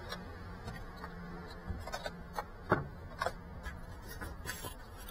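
Faint handling noise from a small FPV drone being handled close to the camera: scattered light clicks, taps and rubbing over a low steady hum, with a few sharper taps about two to three seconds in.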